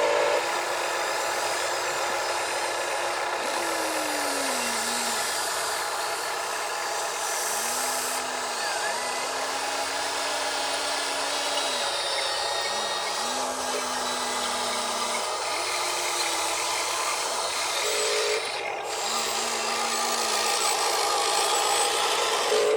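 Small electric motors of radio-controlled construction models whining in short runs of a second or two, several times, some sagging in pitch as they take load, over a steady background hiss.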